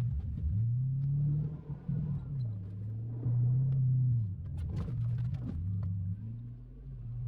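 2002 Chevrolet Silverado's 8.1-litre big-block V8 engine running, its revs rising and falling a few times. A cluster of knocks and clatter comes about five seconds in.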